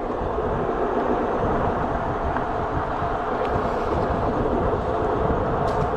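Juiced Scrambler electric bike being ridden at speed: steady wind buffeting on the microphone and tyre noise, with a faint steady hum underneath.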